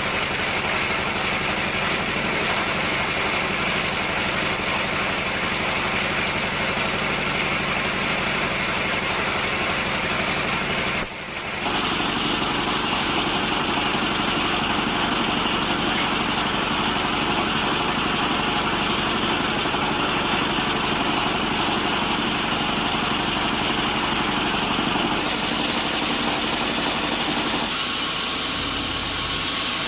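Machinery or an engine running steadily with a continuous hum. The sound changes abruptly about eleven seconds in and again twice near the end.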